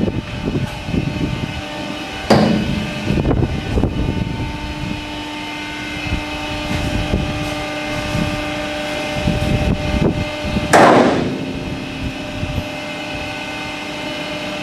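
Waste steriliser plant machinery running with a steady hum while its treatment drawer tips back down, with irregular knocks and two loud metal bangs, one about two seconds in and a louder one near eleven seconds.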